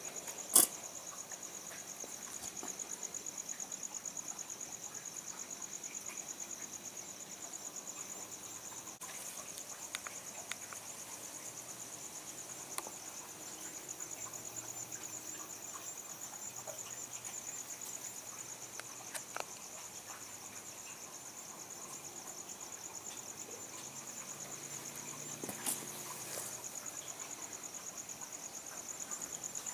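Crickets trilling steadily and high-pitched at night, with a sharp click about half a second in and a few fainter clicks from gear being handled later on.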